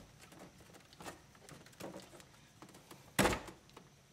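Handling noise from a car radio head unit being worked loose from the dashboard by hand: faint rustling and light plastic-and-metal clicks, with one sharp knock a little after three seconds in.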